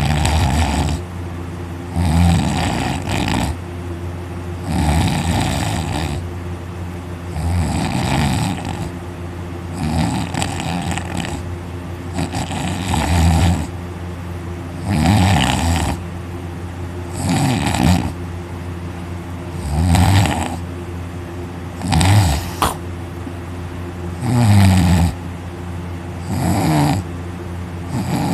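A man snoring very loudly through a wide-open mouth while lying on his back: one harsh snore about every two seconds, each lasting about a second.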